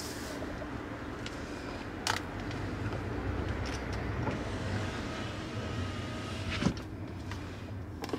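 Inside a car, a low engine and road rumble, with a click about two seconds in. An electric power window then whirs for about two seconds and stops with a knock as it closes.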